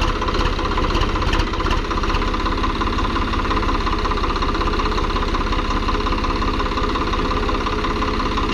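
Swaraj 855 tractor's three-cylinder diesel engine running steadily, with a fast even low-pitched beat.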